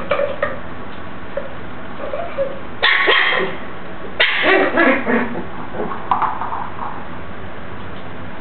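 Seven-week-old West Highland white terrier puppy yapping in short bursts during play, the loudest about three and four seconds in and a smaller one about six seconds in.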